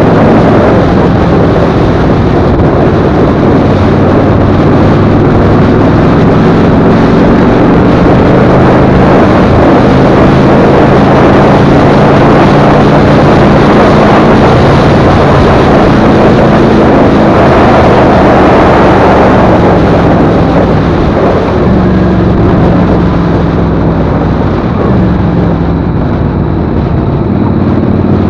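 Motorcycle engine running at cruising speed under heavy wind rush on the microphone, its pitch shifting a few times. The sound eases slightly near the end.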